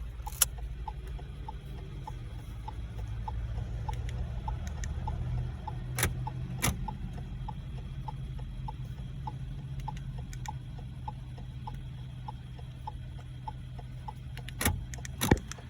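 Car's hazard-light flasher relay ticking steadily, about three ticks a second, over a low steady hum. Two sharp clicks come about six seconds in and two more near the end.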